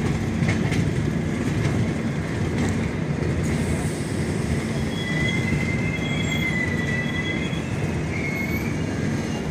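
Running noise of a train heard from aboard as it rolls through a station: a steady low rumble, with a few sharp clicks of wheels over rail joints in the first second. A thin high wheel squeal comes in about five seconds in and fades out near the end.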